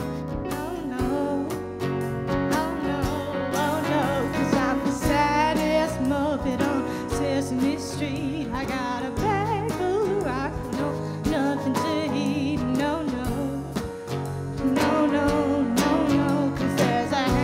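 Live band playing a song, with a singer's voice wavering over the instruments.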